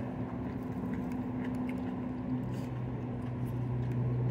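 Steady low mechanical hum with two unchanging tones, like a motor or engine running, with a few faint clicks over it.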